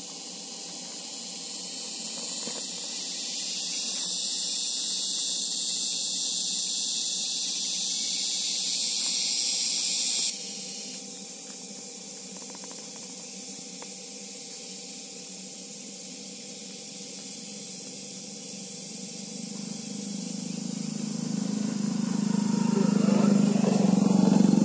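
A loud, steady high hiss builds over the first few seconds and stops abruptly about ten seconds in. Near the end a low engine rumble grows louder, as a vehicle approaches.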